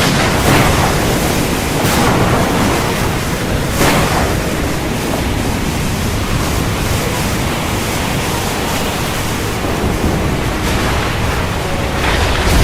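Heavy rain pouring steadily, a dense, loud hiss with a few brief swells in strength, a couple in the first few seconds and one near the end.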